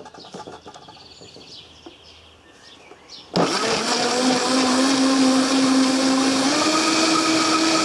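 High-speed countertop blender switched on about three seconds in, running at full power as it purees a green smoothie of fruit, leaves and water. Its motor hum steps up in pitch twice while it runs.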